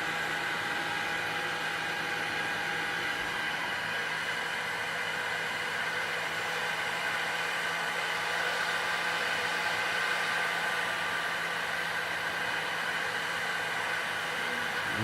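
Hot-air heat gun blowing steadily on a graphics card's GPU chip: an even fan whir and hiss with a few constant tones. The chip is being heated to reflow the solder balls underneath it.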